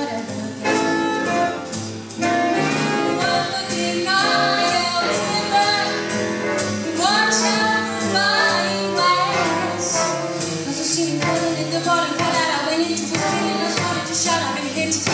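Female vocalist singing with a jazz big band: saxophones and brass, archtop guitar, upright bass and drum kit playing together, with the voice gliding in pitch through a held phrase partway through.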